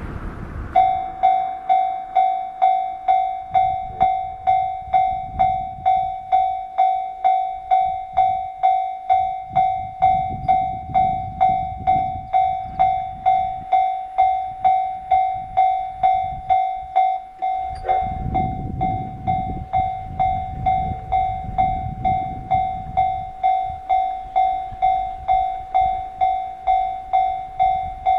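Japanese level-crossing warning bell ringing, a repeated metallic 'kan-kan' just under twice a second with each strike fading, warning of an approaching train. It starts about a second in, over a low rumble.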